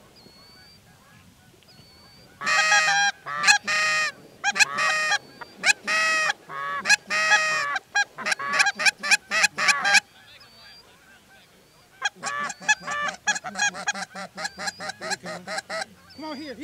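Loud, close goose honking: a run of drawn-out honks starting about two seconds in that speeds up into fast, short clucks, a brief lull, then another string of quick clucks near the end.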